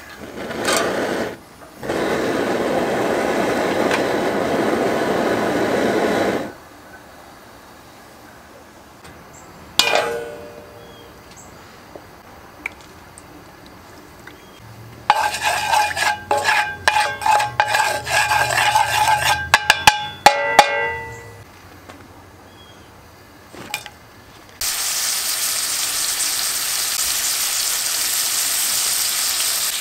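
A propane cooker burner is lit with a lighter and runs with a steady rush for a few seconds. Later comes a run of sharp knocks and clatter with a metallic ring in a cast iron pot. Near the end, sliced hot dogs fry in oil in the pot with a steady sizzle.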